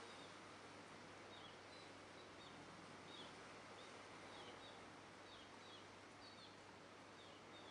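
Faint, short, high chirps of small birds, each dropping quickly in pitch, scattered irregularly over a steady background hiss.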